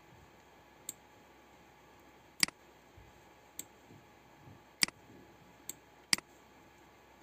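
Computer mouse clicking: six sharp, separate clicks about a second apart, three of them louder than the others, over a faint steady hiss.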